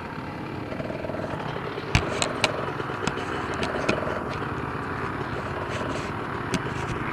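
Several off-road motorcycle engines idling together in a steady, overlapping drone, with a few sharp clicks about two seconds in.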